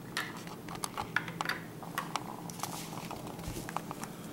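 Light scattered clicks and taps of small plastic toys being handled and set down on a plastic toy kitchen, over a faint steady low hum.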